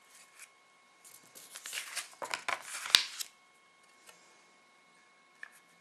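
A sheet of paper being handled and laid over a board: a run of rustles and crinkles starting about a second in, ending with a sharp tap about three seconds in.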